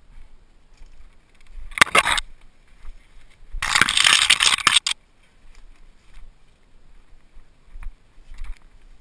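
Leaves and branches scraping against a helmet-mounted camera as a mountain bike pushes through overgrowth: a short rustling scrape about two seconds in and a longer one a little later. Between them, faint ticks and rattles of the bike rolling over rough ground.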